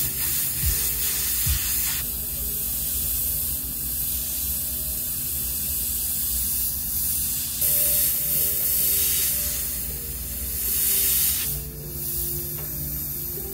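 Airbrush spraying paint onto a T-shirt: a steady hiss of air through the nozzle, its tone shifting abruptly about three times.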